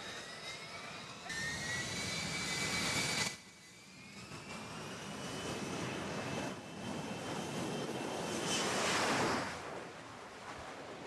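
F-35B fighter jet's F135 turbofan running on deck, a high whine whose pitch rises slowly as the engine spools up. About nine seconds in it swells into a louder rush of jet noise as the jet powers up for a short takeoff, then falls away.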